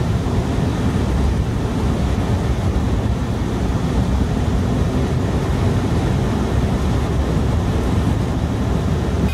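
Steady low rumble of a car travelling at highway speed, heard from inside the cabin: tyre and engine noise with no break or change.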